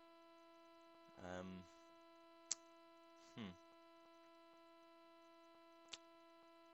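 Near silence apart from a faint, steady electrical hum. A short murmured hum from a voice comes about a second in, a shorter falling vocal sound a little later, and there are two brief sharp clicks.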